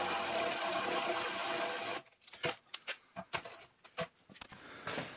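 Cordless drill boring into a steel bar held in a bench vise, running steadily for about two seconds and then stopping, followed by a few short clicks and knocks.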